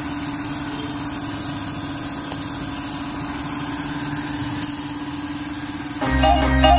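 Gravity-feed air spray gun spraying base-coat paint: a steady hiss of air over the even hum of a running air compressor. Music comes in near the end.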